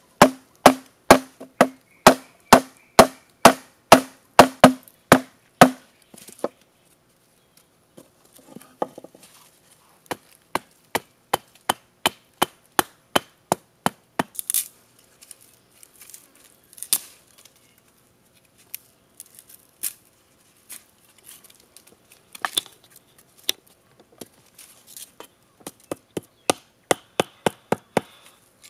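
A hand-held blade chopping a wooden stick: steady blows about two or three a second, each with a short ringing note, for the first six seconds, then after a pause lighter, quicker chops in irregular bursts with short gaps.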